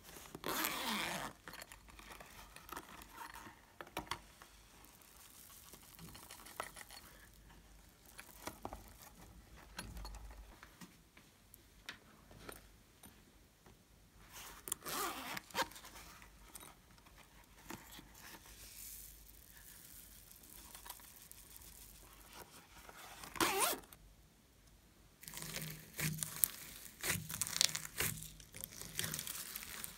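A zipper on a foam rainbow pouch being pulled in short strokes: once at the start, again about halfway, and again about three-quarters through. Near the end comes a dense crackle of foam beads crunching as hands press into the slime.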